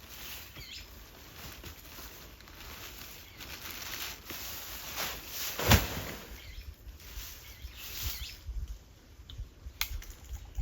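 Rustling and handling noise with one loud knock about halfway through and a sharp click near the end.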